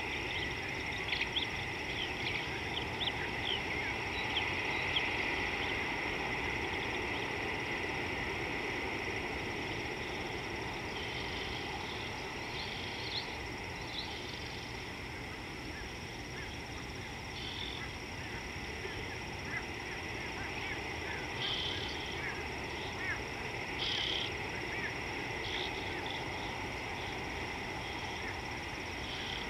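Short, high animal calls: a flurry of chirps in the first few seconds, then clipped calls every few seconds. They sit over a steady outdoor hiss.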